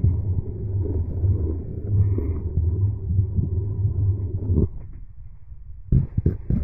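Low, steady running rumble of a moving train heard from inside the coach. It drops away suddenly for about a second near the end, then returns with a few knocks.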